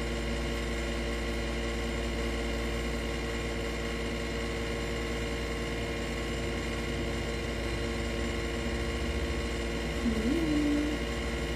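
Steady hum of a window-type air conditioner running, made of several steady tones. Near the end a short tone rises and then holds for under a second.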